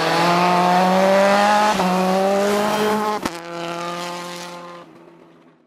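Citroën DS3 WRC rally car's 1.6-litre turbocharged four-cylinder engine running hard at high revs, its pitch climbing. There is a sharp crack about three seconds in, and then the engine note fades away as the car drives off.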